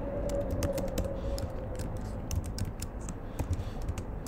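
Typing on a computer keyboard: an irregular run of key clicks, several a second.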